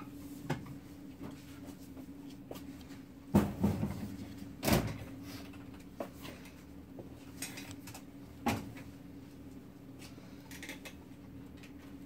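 Handling noise of a plain 2008 Zippo lighter turned in a cotton-gloved hand: scattered soft knocks and clicks of the metal case, the loudest a short cluster about three and a half seconds in and another just under five seconds in, over a steady low hum.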